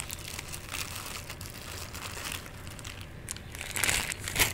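Clear plastic bag crinkling as a guitar pickup wrapped in it is handled, with a louder burst of rustling near the end.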